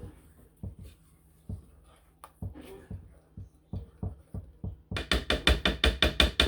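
Instant chocolate pudding being mixed by hand: scattered knocks of the container and utensil, then, about five seconds in, a quick, loud run of rhythmic knocks.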